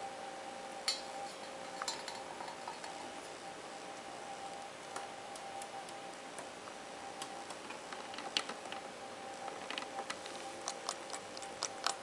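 Scattered light ticks and taps from an Indian ringneck parakeet moving about a glass tabletop by a stainless-steel milk jug, coming thicker near the end, over a steady faint background tone.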